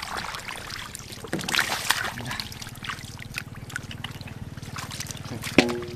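Hands splashing and trickling through shallow muddy water among grass, groping for catfish. A low steady hum runs underneath from about two seconds in.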